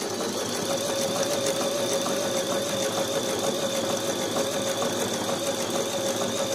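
Brother XL-6053 household sewing machine stitching through denim at a steady speed: a steady motor whine over the fast clatter of the needle.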